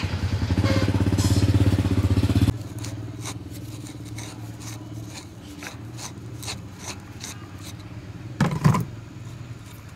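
An electric motor hums loudly for about two and a half seconds and cuts off suddenly. Light clicks and taps follow, with a heavier knock near the end.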